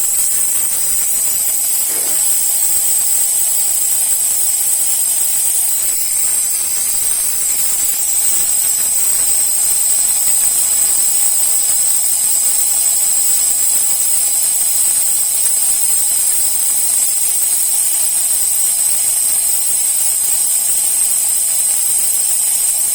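Klarstein Espressionata Gusto espresso machine venting steam through its steam wand, a loud, steady hiss that starts abruptly. The steam is being let off to bring the boiler pressure down below the cup mark on the gauge so espresso can be brewed; the steaming button is still on, keeping the pressure up.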